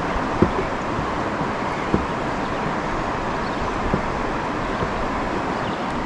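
Steady rush of swift river water moving around a kayak, with a few soft low knocks about every two seconds.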